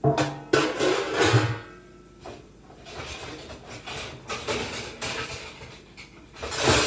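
Metal pans clattering and scraping while being sorted through and pulled out of a kitchen cabinet. A loud burst of clatter with some ringing comes at the start, lighter handling follows, and more loud clatter comes near the end.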